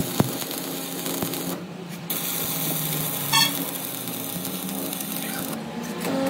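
Electric arc welding on a steel gear: the arc gives a steady crackling sizzle, which eases briefly about a second and a half in and stops shortly before the end.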